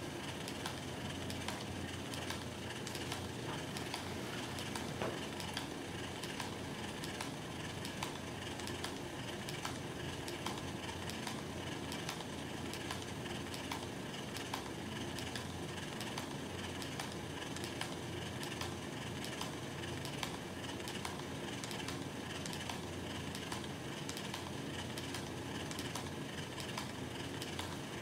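Sigma Spectrum infusion pump running steadily while delivering an alteplase loading dose: the pumping mechanism's motor hums with a rapid stream of small clicks.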